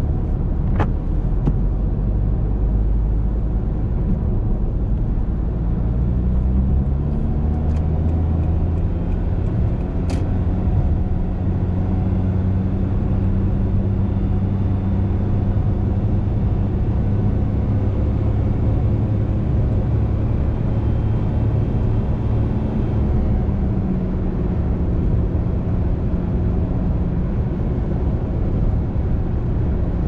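Car engine and tyre rumble heard from inside the cabin while driving. The engine note climbs as the car picks up speed several seconds in, then holds steady and eases slightly later on.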